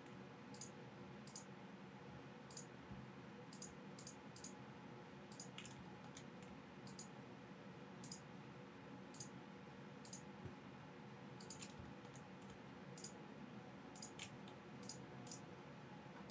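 Computer mouse buttons clicking, about twenty crisp single clicks at irregular intervals, as faces are painted one by one with SketchUp's paint bucket. A faint steady room hum runs under the clicks.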